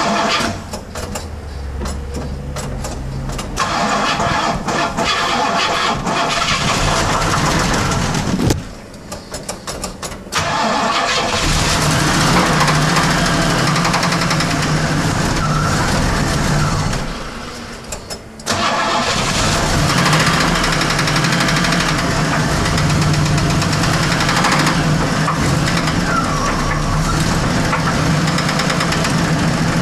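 1979 Pontiac Trans Am's 301 cubic-inch V8 running, the sound falling away for a few seconds three times and coming back sharply. The engine has a bad bearing, as the owner calls it.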